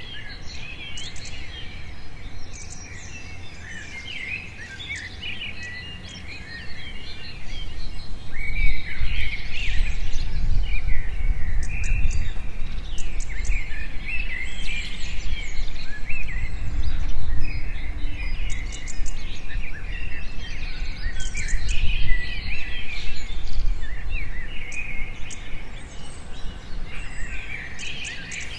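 Many birds chirping and calling in a busy chorus of short, high, gliding notes. From about eight seconds in, a low rumble swells underneath and later fades.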